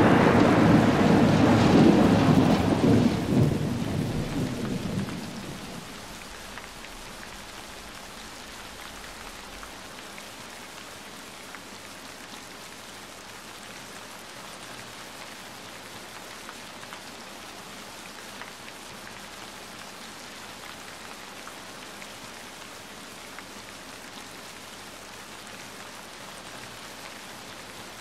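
Heavy rain pouring steadily, an even hiss of rain on foliage, grass and water. A loud low rumble at the start dies away over the first five seconds.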